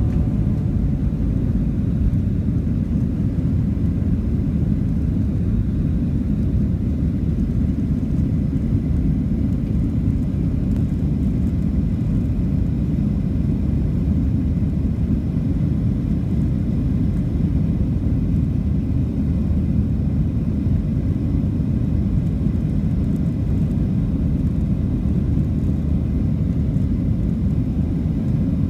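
Steady low rumble of a passenger jet's cabin in flight, an even drone of engine and airflow noise that doesn't change.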